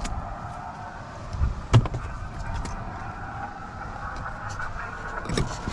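Steady low rumble of a car, with a steady hiss of radio static from the mobile amateur radio's speaker between transmissions. A single knock sounds about two seconds in.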